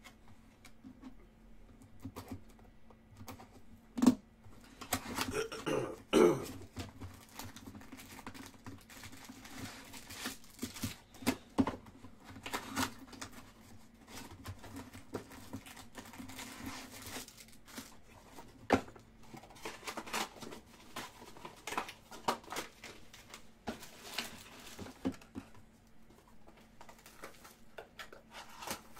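Hands handling a baseball card box and its wrapped packs on a table: cardboard flaps worked open, pack wrappers crinkling and packs tapping down in many short clicks and knocks, with one sharp knock about four seconds in. A faint steady hum runs underneath.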